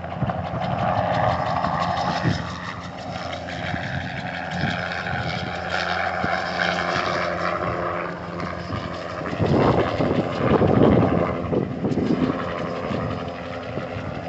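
A light helicopter with a two-blade main rotor flies low and steady overhead, an engine hum under the rotor noise. It grows loudest about ten seconds in as it passes closest, then eases off as it moves away.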